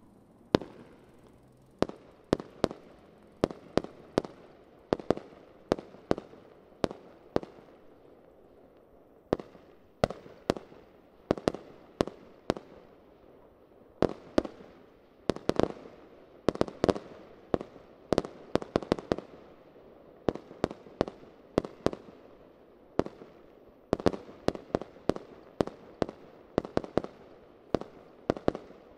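Fireworks show: dozens of sharp bangs from aerial shells bursting, in irregular rapid clusters, each trailing off in a short echo, with two brief lulls between volleys.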